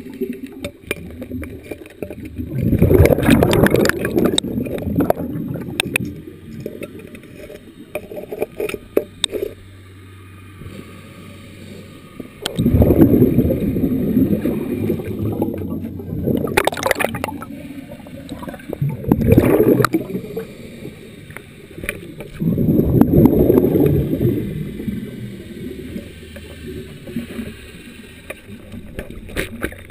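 Scuba diver's exhaled bubbles heard underwater: rumbling bursts of bubbling a few seconds long, several times over, with quieter stretches between breaths.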